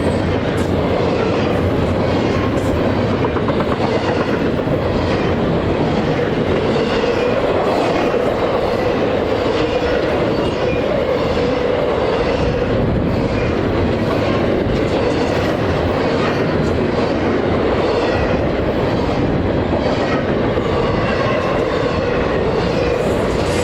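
Norfolk Southern intermodal freight cars rolling past steadily, with a continuous rumble and wheels clacking over the rail joints.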